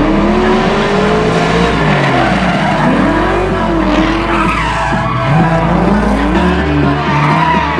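Drift cars sliding through a corner: their engines rev up and down over and over under the noise of tyres spinning and squealing.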